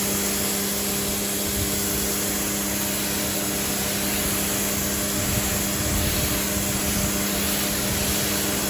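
Electric pressure washer running steadily, its pump motor humming under the hiss of a jet of water sprayed onto a car's bodywork through the white 40-degree nozzle tip.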